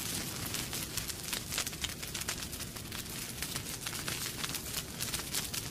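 Chicken kebabs on skewers sizzling over a charcoal grill, a dense, steady crackle of many small pops.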